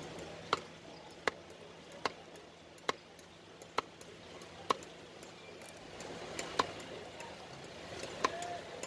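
A heavy knife chopping a skinned katla fillet into slices on a wooden chopping block, each stroke a sharp knock. Six chops come at an even pace of a little more than one a second, then two more come further apart near the end.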